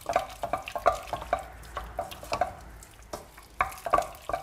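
Wooden spoon stirring pasta through a creamy egg-and-cheese carbonara sauce in a stainless steel pot: wet squelching with irregular short clicks and knocks, a few a second.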